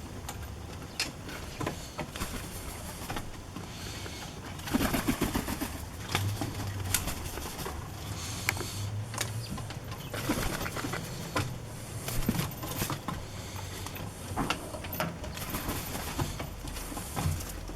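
Kākā (New Zealand parrots) calling, mixed with many sharp clicks and taps.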